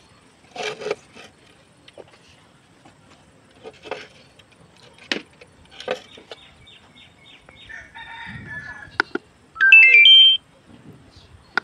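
Zebronics BT-8591 home theatre playing audio after its repair, as a sound test: short scattered sounds and snatches of voice, then a loud, quick run of stepped electronic tones near the end.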